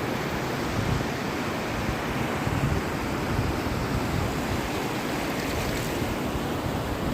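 Sea waves rolling in one after another onto the shore, a continuous rushing surf that swells and eases.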